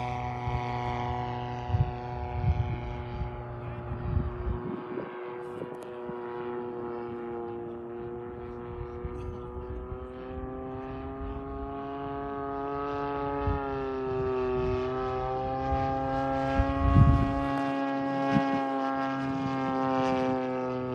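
DLE 55 single-cylinder two-stroke petrol engine of a large-scale radio-control A6M Zero in flight, a steady propeller drone whose pitch wavers a little as the plane moves around the sky. Low thumps of wind on the microphone come through a few times.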